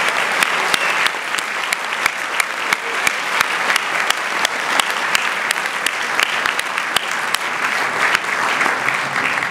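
Audience applauding after a live acoustic set: a steady wash of many hands clapping, with single sharp claps standing out.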